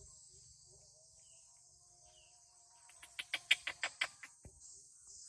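Steady high-pitched drone of insects, broken about three seconds in by a rapid run of eight or nine sharp chirping calls from a bird, lasting just over a second.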